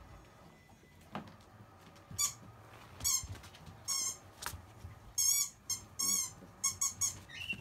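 Seven-week-old Akita puppies at play, making a run of short, high-pitched squeaks that come singly and then in quick groups, starting about two seconds in.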